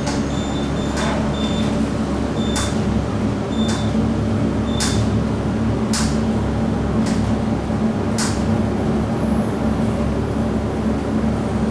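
High-rise elevator cab riding, with a steady low hum throughout. Short high beeps sound during the first five seconds, and sharp clicks come roughly once a second until about eight seconds in.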